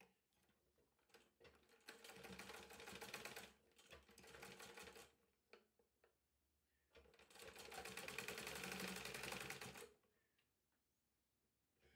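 Sewing machine stitching in three short runs of rapid, even needle strokes with pauses between them. The last run is the longest, about two and a half seconds.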